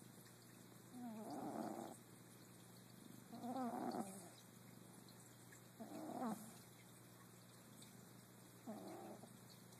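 A sleeping pet snoring: four rasping snores with a wavering pitch, about one every two and a half seconds, with quiet breathing in between.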